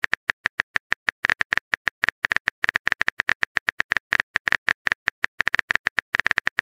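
Rapid phone-keyboard typing clicks from a texting app's sound effect, short sharp taps at about eight to ten a second in an uneven rhythm.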